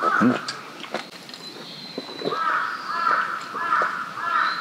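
A man gulping beer down in quick, loud swallows, about three gulps a second, starting about two seconds in.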